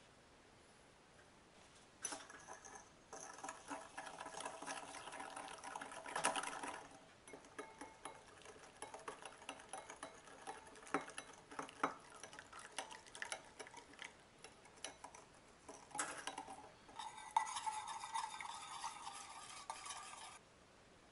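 Wire whisk beating egg yolks and sugar in a glass bowl as hot milk is poured in to temper them, a fast run of clicks and scrapes against the glass starting about two seconds in. Near the end the mixture is poured back into a stainless steel saucepan and whisked there, and the sound stops suddenly just before the end.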